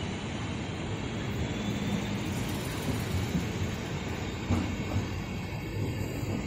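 Deutsche Bahn Intercity coaches rolling past as the train pulls away, wheels knocking over rail joints over a steady low rumble.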